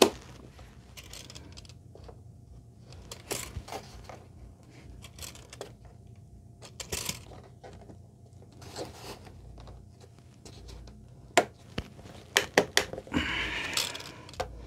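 Handling noise of foam board and a clamped PVC strip being adjusted by hand: scattered light clicks, taps and scrapes. A few sharper clicks come about eleven to thirteen seconds in, followed by a short rattling scrape as a tape measure is picked up and handled near the end.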